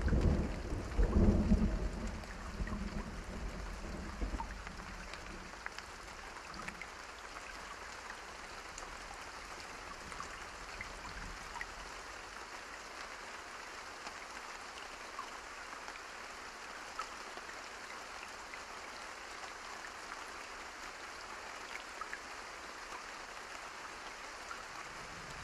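A thunder rumble fades away over the first few seconds, then steady rain falls with scattered individual drops audible.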